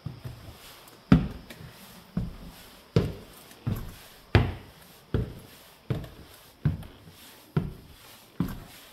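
Footsteps on the wooden floorboards of a small cabin room: about ten steady steps at a walking pace, each with a short echo.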